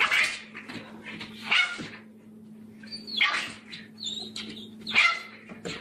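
Small puppy barking in short, high-pitched yaps, about five of them roughly every second and a half, warning a larger dog away from its food bowl.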